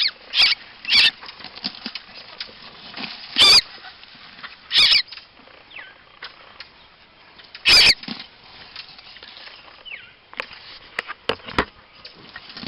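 Brown thrasher giving short, harsh squawks at irregular intervals, about six loud ones, with fainter ones near the end.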